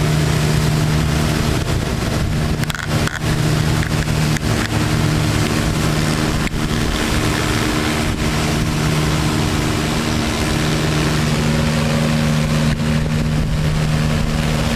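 28 HP Kubota water-cooled diesel engine of an Alkota hot-water pressure washer running steadily under load, its drone carried over a continuous hiss.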